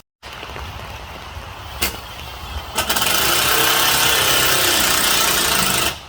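A loud, steady engine-like roar that starts suddenly about three seconds in and cuts off abruptly near the end, after a single sharp knock a little earlier.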